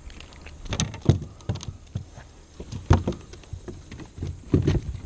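A small pickerel flopping and thrashing on a kayak's deck after being swung aboard, with the rod and gear being handled around it: a string of irregular knocks and thumps, the loudest about a second in, near three seconds and near the end.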